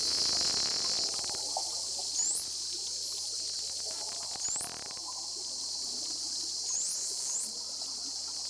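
Bottlenose dolphins underwater: about five short rising whistles and a few scattered clicks over a steady high hiss.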